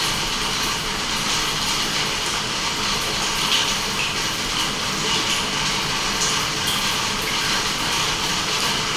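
Steady hiss of rain mixed with the bubbling of aquarium air bubbles, with small water-drop plinks now and then.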